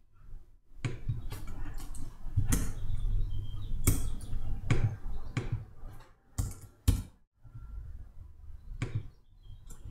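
Computer keyboard keystrokes and mouse clicks: scattered, irregular taps as numbers are typed into a settings dialog, with one sharp click about seven seconds in.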